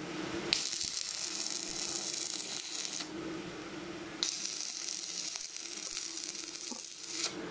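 Stick (shielded metal arc) welding on steel: the electrode arc crackles and hisses in two runs, the first starting about half a second in and lasting some two and a half seconds, the second starting about a second later and going on until just before the end. A steady low hum lies underneath.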